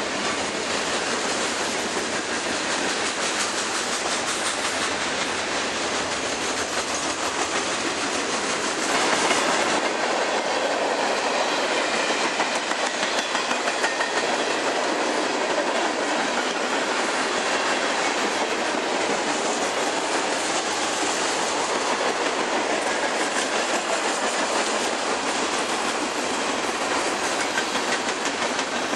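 A long freight train of tank cars, covered hoppers and boxcars rolling past close by, its steel wheels rumbling and clicking over the rails in a continuous run, a little louder from about nine seconds in.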